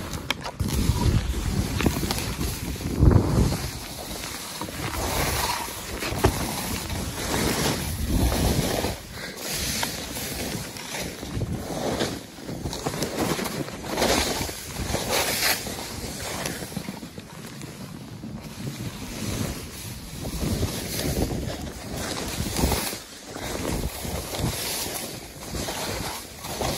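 Hiss and scrape of sliding downhill fast over snow, swelling and fading every second or two, with wind buffeting the microphone.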